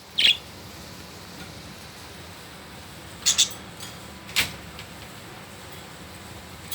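Budgies giving a few short, sharp chirps and clicks: one near the start, a quick pair about halfway through and another a second later, over a steady background hiss.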